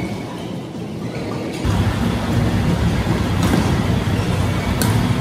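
A loud low rumble with a steady hum comes in suddenly about a second and a half in and holds. Two sharp racket hits on a shuttlecock sound over it.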